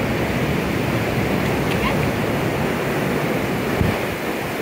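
Steady rush of ocean surf with wind on the microphone; a brief low thump a little before the end.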